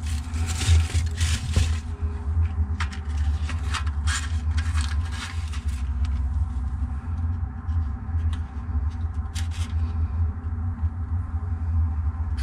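Hands handling charcoal briquettes and lighting a fire starter in a drum smoker's charcoal basket: scraping and rustling in the first couple of seconds, then scattered sharp clicks, over a steady low rumble.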